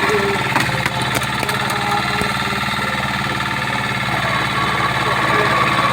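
Engine of a wood-cutting machine running steadily, with a few sharp clicks in the first two seconds.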